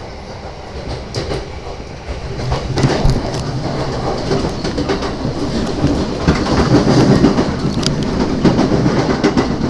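Interior running noise of an E235-series Yamanote Line train, heard from inside a passenger car: a steady rumble with wheels clicking over rail joints, growing louder about three seconds in.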